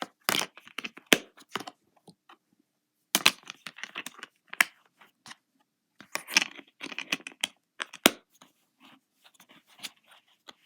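Plastic disc case and discs being handled: several sharp clicks and snaps among bursts of rustling and crinkling.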